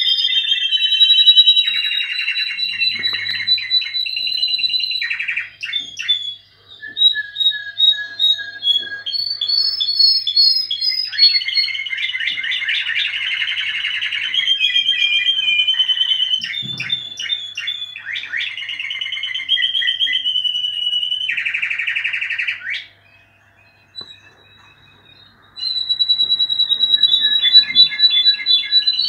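Spanish Timbrado canaries singing: long runs of fast trills and repeated notes. The song breaks off for about three seconds past the three-quarter mark, then starts again.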